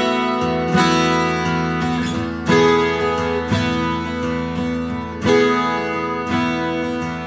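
Music played on a plucked string instrument, guitar-like: notes plucked or strummed about once a second, each ringing on.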